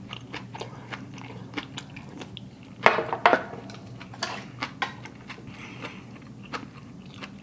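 Close-miked eating: a person chewing and smacking on a mouthful of udon hot pot, with many small wet mouth clicks and two louder smacks about three seconds in.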